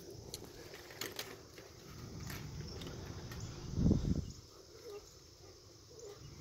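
Chickens clucking faintly, with scattered light clicks and knocks and a brief low rumble about four seconds in, the loudest sound.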